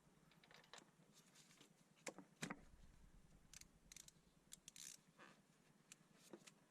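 Near silence broken by scattered faint clicks and light taps of hand tools and parts being handled on a car engine, the two sharpest about two seconds in.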